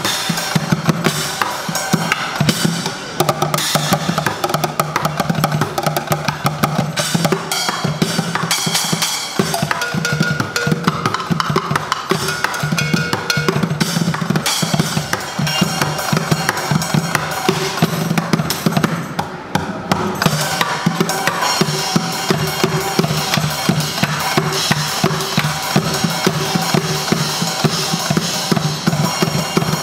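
Fast, dense drumming with sticks on upturned plastic buckets, mixed with cymbal hits and a small drum kit, played as a continuous groove with a brief let-up about two-thirds of the way through.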